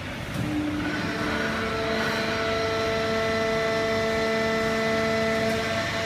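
Fully automatic horizontal hydraulic baler for waste paper, with its feed conveyor, running: a steady machine drone with several steady humming tones that settle in about a second in.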